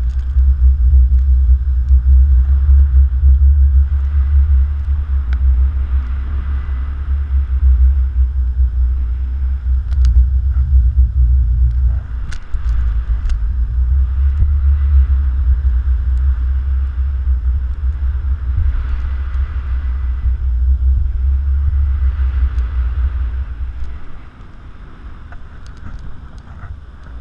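Wind buffeting the microphone of a camera carried aloft by a parasailer: a loud, steady low rumble that dips briefly about halfway through and eases off a few seconds before the end.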